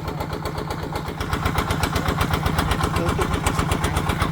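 Small engine running with a rapid, even chugging, getting louder about a second in.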